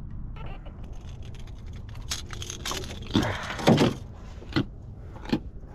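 Rattling, clicking and knocking as a jack is landed and handled in a small boat, with louder bursts about three seconds in.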